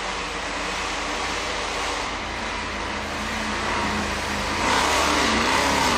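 Engines of 4x4 off-road trucks running hard during a drag run, the revs rising and falling, the sound growing louder about five seconds in.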